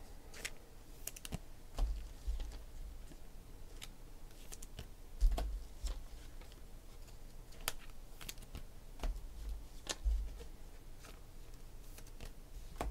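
Irregular light clicks and taps, with a few dull low knocks about two, five and ten seconds in.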